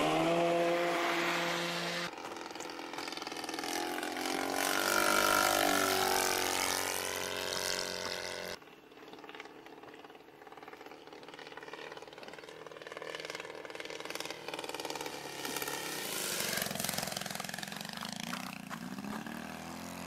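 Saito FG-57T petrol boxer-twin four-stroke engine and 22x10 propeller on a 50cc-size radio-controlled Corsair in flight, its note sweeping up and down in pitch as the plane passes. About eight seconds in the sound drops suddenly and carries on fainter, with the plane far off.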